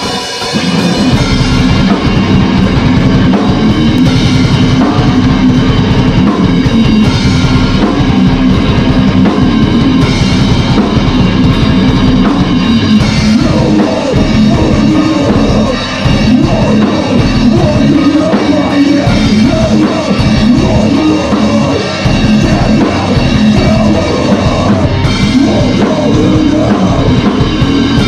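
Hardcore band playing live: distorted electric guitars over a driving drum kit with heavy bass drum. The music kicks in hard at the start, with brief drops in loudness about halfway through and again a little later.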